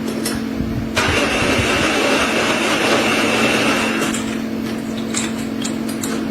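Machine tool running with a steady hum. About a second in, a loud hissing noise with a faint high whine starts and lasts about three seconds, followed by scattered light clicks.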